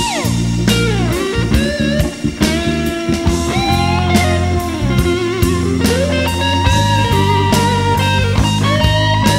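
Blues-rock background music: an electric guitar plays a lead line with sliding, bending notes over bass and a steady drum beat.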